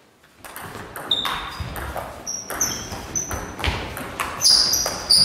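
Table tennis rally: the ball clicking back and forth off bats and table at about three hits a second, starting about half a second in. Several brief high squeaks of shoes on the hall floor run through it.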